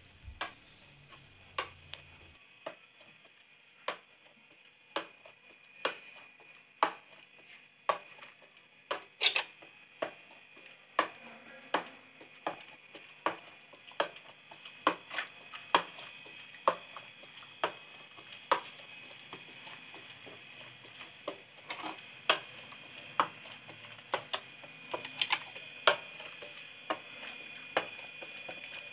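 Madhani hand whisk twirled through gram flour and lassi in a metal pot, knocking against the pot about once a second, a little faster near the end. A faint steady high tone runs underneath.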